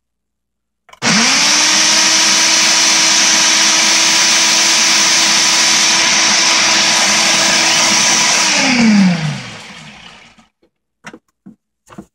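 Ninja countertop blender running at full speed through a thick green vegetable shake. It starts about a second in with a quick rise in pitch, runs steadily for about seven seconds, then winds down with falling pitch as the motor is switched off. A few light clicks near the end as the jar is taken off the base.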